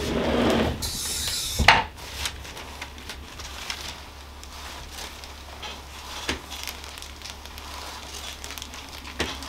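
Hands rubbing and pressing on skin and hair during a manual neck stretch: soft rustling and rubbing, with one sharp click just under two seconds in and a few faint ticks after.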